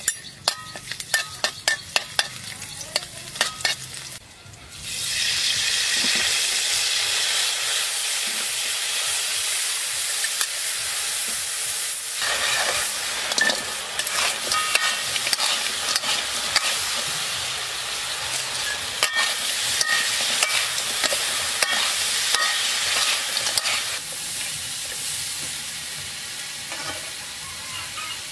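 Chicken pieces frying in hot oil in a wok: a loud, steady sizzle that starts suddenly about five seconds in and eases a little near the end, with scattered clicks as they are stirred. Before it, a quick run of sharp clicks and knocks.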